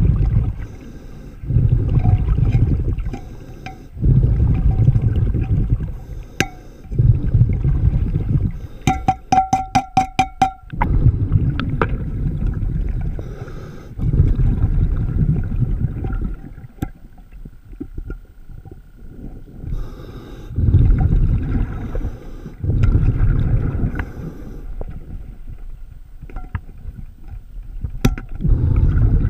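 Diver's regulator breathing underwater: rumbling bursts of exhaled bubbles every couple of seconds, with quieter inhalations between. About nine seconds in comes a quick run of about a dozen sharp clicks.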